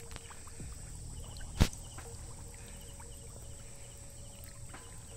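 Faint sloshing of shallow water, with short high chirps repeating about every half second and one sharp click about one and a half seconds in.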